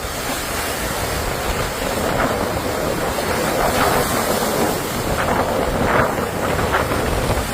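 Storm wind buffeting the microphone: a loud, steady rush of noise with small surges.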